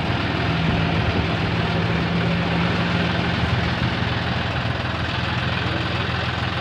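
John Deere tractor's diesel engine running steadily at an even speed.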